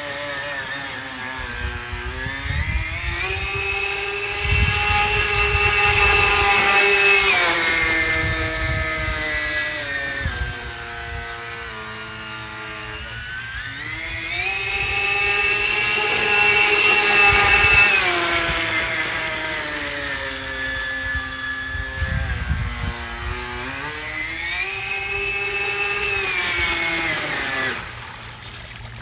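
RC boat's single brushless electric motor whining. Its pitch rises as the throttle opens, holds high for a few seconds, then falls, three times over.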